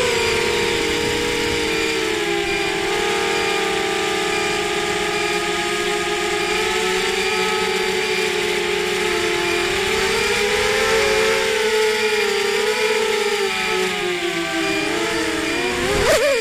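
Four T-Motor 1806 2300Kv brushless motors spinning 5x4.5 propellers on a ZMR250 FPV racing quadcopter, heard through the onboard camera. A steady high whine that rises and dips a little with throttle, then wavers and surges briefly near the end.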